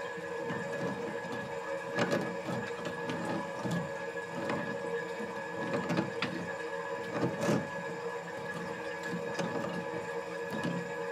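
A wrench working the supply-hose nut on a toilet's shut-off valve: irregular metal clicks and knocks every second or two, over a steady faint hum.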